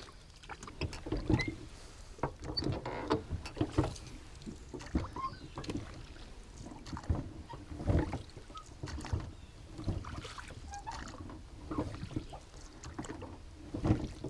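Small aluminium jon boat being paddled: irregular knocks and thumps of the paddle and gear against the metal hull, with water sloshing.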